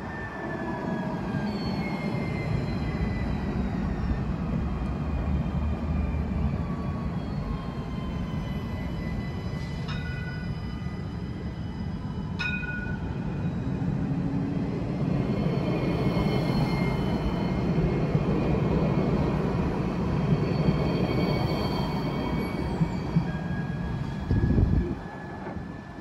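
Alstom Citadis 305 tram passing close by: the rumble of its wheels on the rails under the whine of its electric traction motors, which falls in pitch at first and rises again in the second half. A brief low thump comes near the end.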